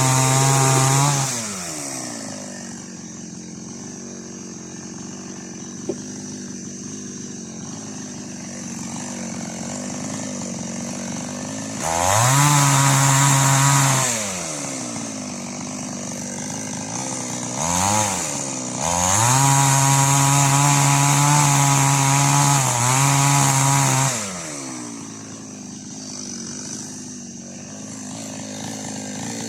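Preco two-stroke chainsaw with an 18-inch bar, dropping back to a low idle between bursts of full throttle of about two to five seconds. There are three throttle bursts and a short blip near the middle.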